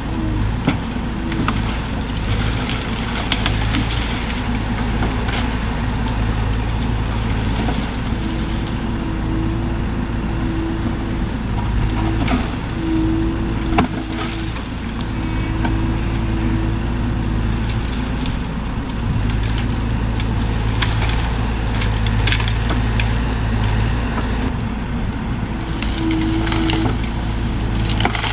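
Bobcat E42 mini excavator's diesel engine running steadily under load, with a tone that comes and goes, while dead sassafras wood and vines crack and snap as the machine pushes at the tree.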